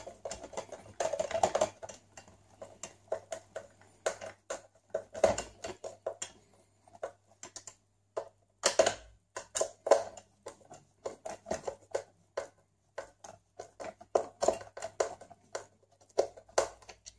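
Hand screwdriver backing out the screws that hold the battery inside a Streamlight Vulcan flashlight's plastic housing: a run of short, irregular clicks and scrapes.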